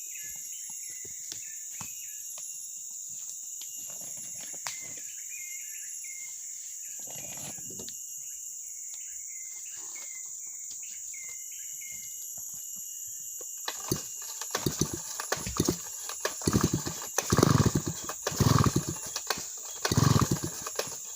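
Steady high buzz of insects with scattered bird chirps. In the second half, a homemade chainsaw is pull-started again and again, giving a run of short, rough coughing bursts.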